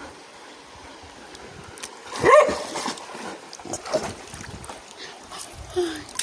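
A dog barks once, loudly and briefly, about two seconds in, then gives a few fainter short calls later.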